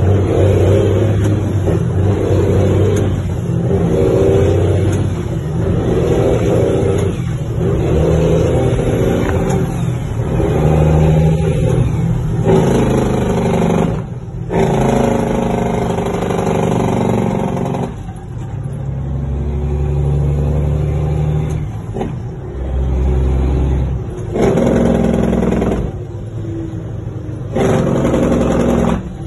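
Cummins N14 inline-six diesel engine heard from inside the truck's cab, pulling under load. Several times in the second half the revs climb, cut off briefly and pick up lower as the driver shifts up through the gears.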